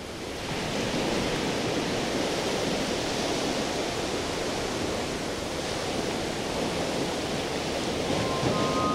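Ocean surf breaking and washing up a beach: a steady rush of waves that swells in over the first second. Near the end, chiming music notes come in.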